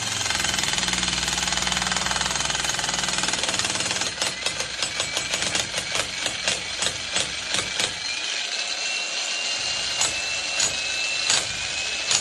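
Heavy-duty jackhammer hammering steadily. About four seconds in, the sound breaks into separate sharp knocks, a few a second, over a high whine that rises slowly.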